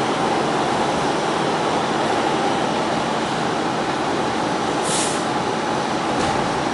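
Interior of an R46 subway car in motion: steady rolling noise of wheels on rail with a steady whine in it, and a short high hiss about five seconds in.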